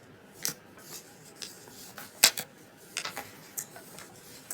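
Scattered light clicks and taps of small hard objects, six or so, the loudest a sharp click about two seconds in.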